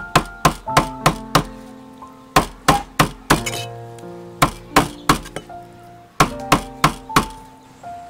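Kitchen knife chopping cow intestine on a wooden chopping board: sharp knocks in quick runs of three to five, about three a second, with short pauses between runs. Background music plays underneath.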